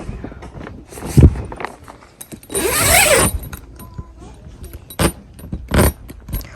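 Handling noise from gear being moved about: a heavy thump about a second in, a loud scraping rattle in the middle, and two sharp knocks near the end.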